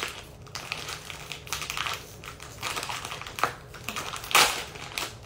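A toy packaging bag being handled and opened by hand: irregular crackling clicks, with two louder ones about three and a half and four and a half seconds in.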